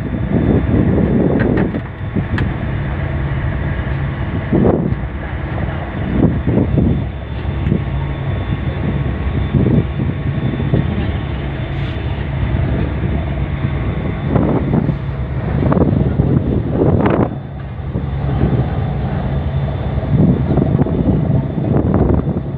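Steady drone of a ship's engines heard from the deck, with irregular gusts of wind buffeting the microphone.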